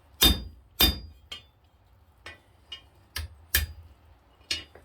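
Hand hammer striking hot steel over the horn of an anvil: two hard blows in the first second, then lighter, irregular taps, some with a short metallic ring, knocking down the sharp edges of a forged eye.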